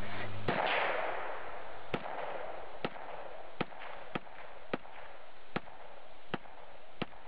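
AR-15-style semi-automatic rifle fired in a steady string of about nine shots, roughly one every three-quarters of a second, each a sharp crack over a constant background hiss.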